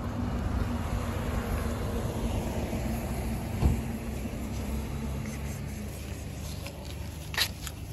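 Low, steady rumble of a motor vehicle running, easing off after about six seconds. A single knock comes a little past halfway and a sharp click near the end.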